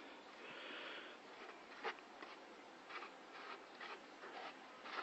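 Quick, short rubbing strokes against a surface, about three a second, with a longer stroke near the start and a sharper, louder one about two seconds in.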